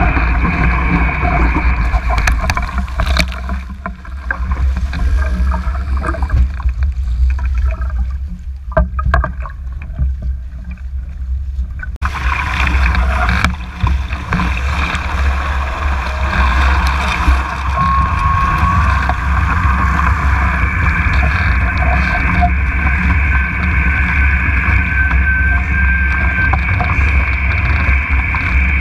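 Wind buffeting the microphone and water rushing and splashing past a Mach 2 Moth sailing dinghy moving at speed. For a few seconds near the middle the sound goes dull as spray covers the camera, then comes back suddenly.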